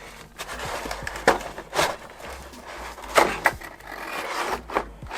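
A mechanical keyboard being pulled out of its shipping box and packaging: scraping and rustling, with a few sharp knocks and clacks as it is handled.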